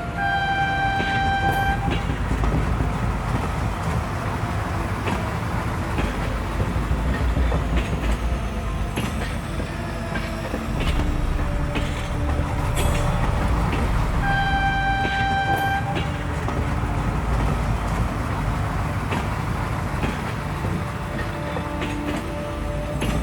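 Train running with a steady rumble, sounding two long horn blasts: one right at the start and another about fourteen seconds in.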